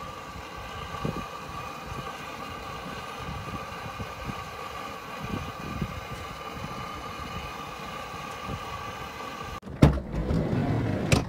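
Grill rotisserie spit motor humming steadily as it turns the gyro meat, over a low rumble with small irregular knocks. Near the end it cuts off, and a sudden loud hit starts a louder sound.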